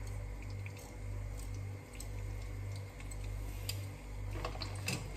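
Chicken karaage frying gently in oil in a pan on low heat, with scattered small pops and crackles over a steady low hum.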